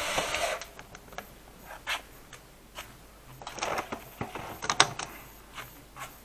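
A burst of noise that cuts off about half a second in, then scattered light clicks and knocks of tools and parts being handled, with a sharp cluster a little before the five-second mark.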